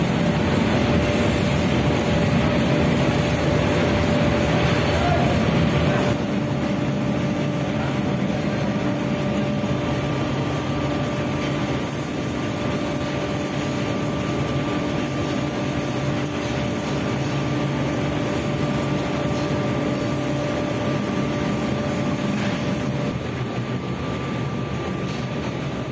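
Steady mechanical drone with a constant hum running under it, the level shifting slightly about six seconds in and again near the end.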